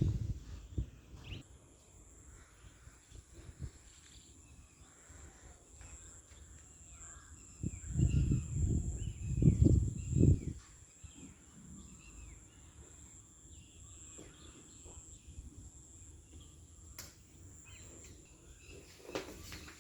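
Birds calling in a run of short, repeated down-slurred chirps, over a steady high-pitched insect drone. Loud low rumbles about eight to ten seconds in.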